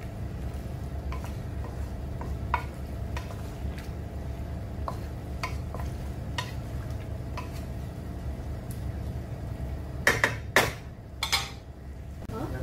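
Wooden spatula stirring raw chicken pieces in a nonstick wok, with scattered light clicks and knocks of the spatula against the pan over a steady low hum. A few louder scrapes and clatters come near the end.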